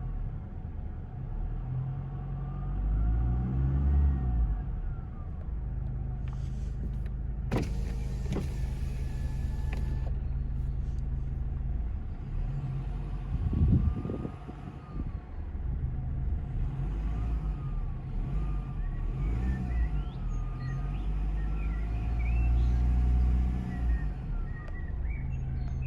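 Kia Ceed 1.6 CRDi four-cylinder diesel running with a turbocharger whine that rises and falls in pitch with the revs, over a steady low engine rumble, with a couple of sharp clicks about a third of the way in. The whine is unusually loud between 1000 and 2000 rpm, with no power loss and intact piping; its cause is not yet known.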